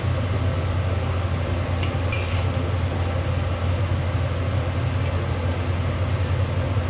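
A steady low rumble that does not change, with one faint short clink about two seconds in.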